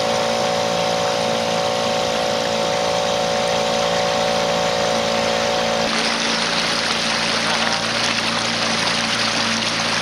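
Tiller-steered outboard motor running steadily under way, with wind and water hiss. About six seconds in, a higher whine drops out and the hiss grows louder.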